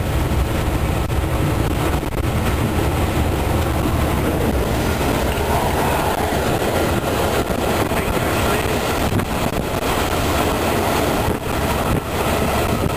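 Steady din heard inside the cab of a DXC diesel-electric locomotive hauling a loaded coal train: the diesel engine running under load together with the wheels rolling on the rails.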